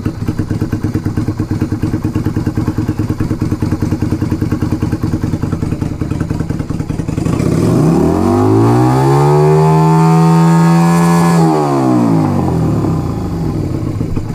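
Yamaha XV250 Virago's 249 cc V-twin running through slash-cut exhaust pipes fitted with 45 mm baffles. It idles with a pulsing beat, then about halfway through revs up smoothly, holds the higher speed for a few seconds and drops back toward idle. This happens while the carburettor mixture screw is being set after the baffle install.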